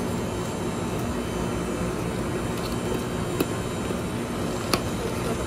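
Steady mechanical hum and whir of a frozen-drink slushie machine running. Two short sharp clicks, the second and louder one about three-quarters of the way through.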